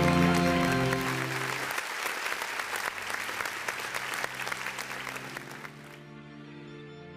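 Large audience applauding, with music playing over it. The music's held chords stop about two seconds in, and near the end the applause cuts off as quieter music comes in.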